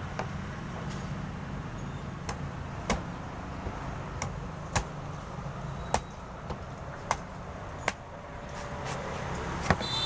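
A large knife chopping into the husk of a green coconut: about a dozen sharp cuts at uneven intervals, over a steady low background rumble.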